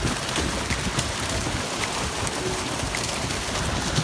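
Steady patter and splashing of water, with many small scattered ticks and drips.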